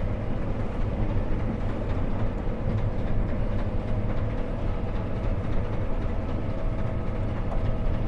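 John Deere T670i tracked combine harvester running under load while threshing grain corn, heard from inside the cab: a steady low drone with a faint steady whine above it.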